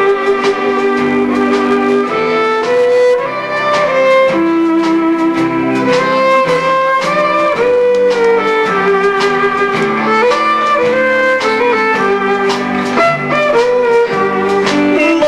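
Live country band playing an instrumental passage: a lead melody line over acoustic rhythm guitar and electric bass, with a steady beat.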